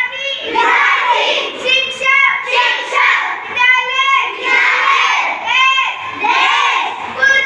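A class of schoolchildren chanting together in unison, loud and rhythmic, at about two beats a second, as in group recitation of a lesson.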